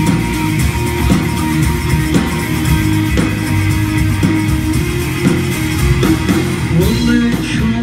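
Rock band playing live: electric guitar over a drum kit in a steady instrumental passage.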